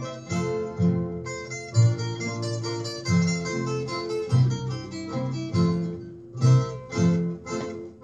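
Zither ensemble music played from a 78 rpm record: plucked zither melody over bass notes in a steady rhythm, with a few loud, separate chords near the end.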